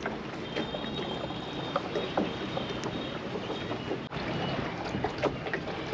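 Water lapping and splashing around a small round basket boat out on the sea, with a steady rush of water and wind and a few light knocks and splashes.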